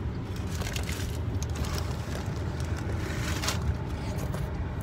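Steady low rumble inside a car, with two spells of crackling from the crunchy taco and its wrapper being handled, about half a second in and again just past three seconds.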